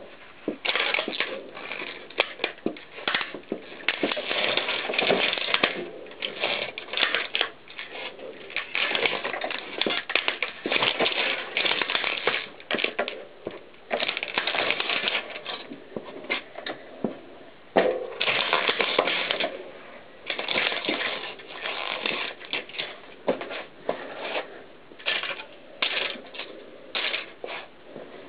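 Plastic VHS cassette shells cracking and crunching under a mountain bike tyre. The crackles and snaps come in irregular clusters with short pauses between them.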